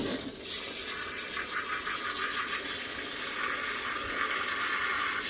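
Water running steadily from a hose into the wash tub of a portable twin-tub washing machine as it fills.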